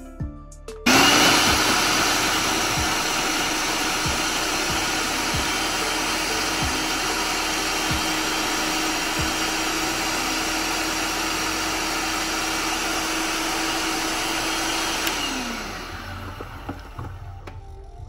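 Electric food processor running, its blade chopping cilantro and green chilies: the motor starts abruptly about a second in, runs steadily with a constant hum, then is switched off and winds down, its pitch falling, near the end.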